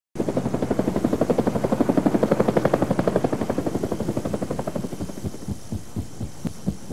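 Helicopter rotor chop, fast and loud at first, then slowing and fading over the last couple of seconds into a slower thudding pulse.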